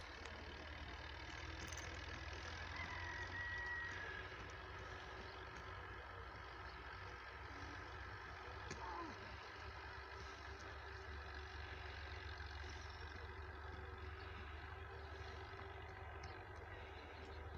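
Faint, steady low rumble of outdoor background noise, with a few brief faint chirps.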